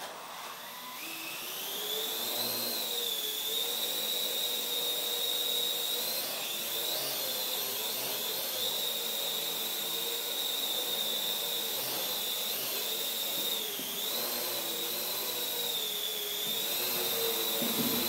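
Parrot AR.Drone quadcopter's four electric motors and propellers spinning up, a high whine rising in pitch over the first two seconds as it lifts off. It then hovers and manoeuvres, the steady whine wavering up and down in pitch as the motors change speed.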